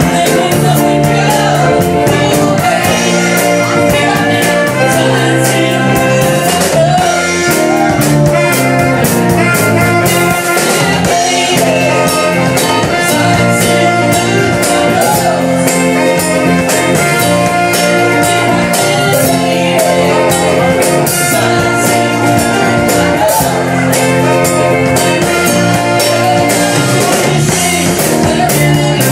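Live horn band playing at full volume: drum kit keeping a steady beat under electric guitar, bass, keyboard, trumpet and saxophone, with a lead singer.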